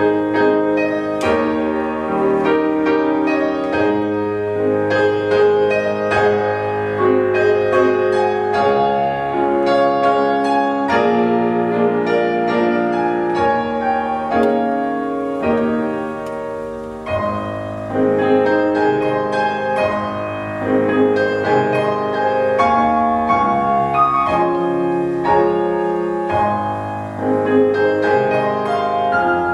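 Solo playing on a Petrof grand piano: a steady flow of quick notes over held bass notes that shift every few seconds.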